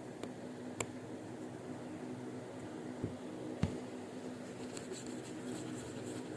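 A few small sharp clicks of tools or parts being handled during quartz wristwatch repair, three in all, over a steady background hum.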